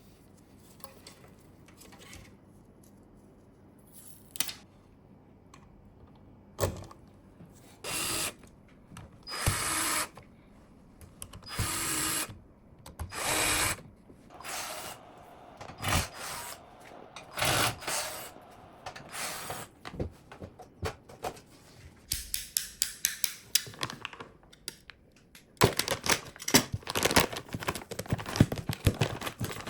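Computer parts being handled and fitted during a PC build: a string of short scrapes and bursts of mechanical handling noise, then quick runs of clicks and rattles in the last third.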